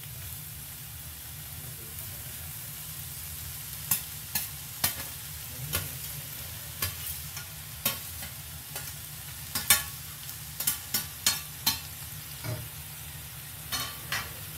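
Frying in a stainless steel sauté pan as shredded beef goes onto the onions, then from about four seconds in a metal spatula clinks and scrapes against the pan in irregular strokes as the beef is stirred.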